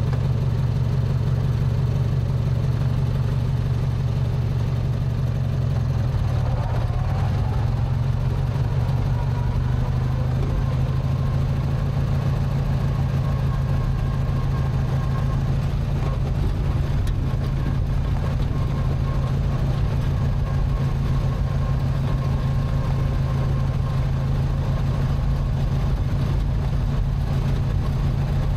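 Riding lawn mower's small engine running steadily while the mower drives along, with a faint high whine through the middle stretch.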